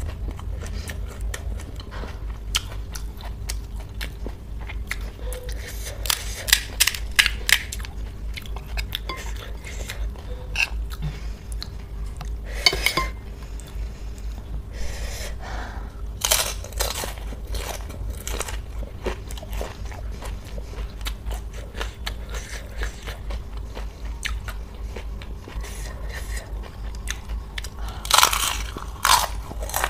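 Close-miked crunching and chewing of crisp, hollow pani puri shells, with scattered clicks and loud clusters of crunches about six seconds in, around thirteen and sixteen seconds, and near the end.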